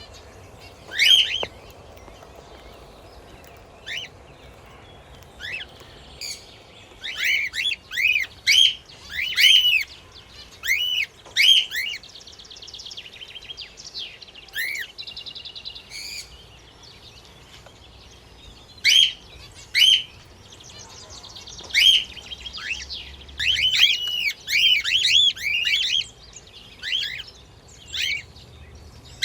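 Pet budgies and a cockatiel chirping: quick arched chirps in irregular bursts, with softer buzzy chatter in between.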